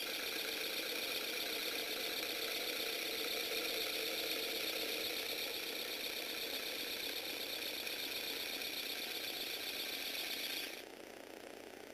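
Small electric motor whirring as it turns a Lego Technic V8 engine model, running steadily and cutting off suddenly near the end.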